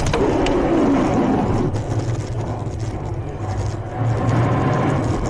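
A car collision heard from inside the dashcam car: the impact lands right at the start, followed by loud, continuous crash noise with a steady low hum underneath, swelling again about four seconds in.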